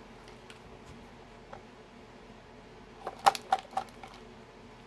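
Weighted fuel-line clunk knocking inside an empty plastic fuel tank as the tank is tilted: a quick run of four or five light clicks about three seconds in. The clunk is swinging freely into the tank's corners, as it should.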